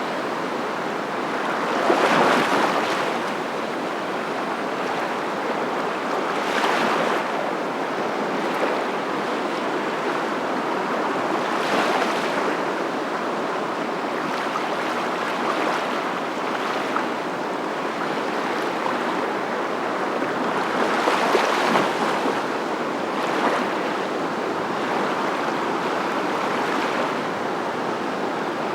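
Waves washing in on a shore: a continuous rushing surf with swells that build and fade every few seconds.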